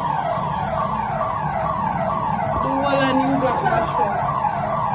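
Electronic siren or alarm wailing in fast falling sweeps, about two a second.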